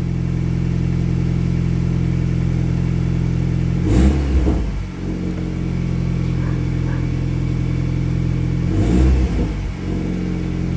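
Audi A4's turbocharged engine idling steadily, with two brief throttle blips about four and nine seconds in.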